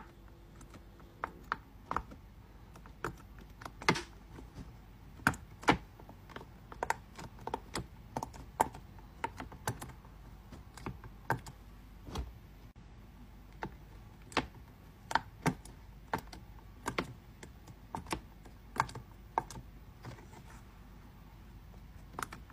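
Silicone push-bubble (pop it) fidget toy having its bubbles pressed in one at a time with a finger: a string of sharp pops at an uneven pace, roughly one or two a second.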